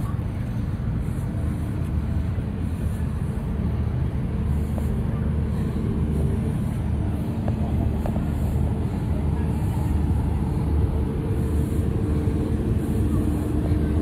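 Steady low rumble and hum of funfair ride machinery, running without a break.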